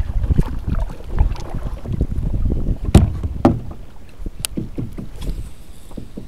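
Water slapping against a plastic kayak hull, with wind buffeting the microphone in a gusty low rumble. There are a few sharp knocks about three, three and a half and four and a half seconds in as fishing gear is handled in the boat.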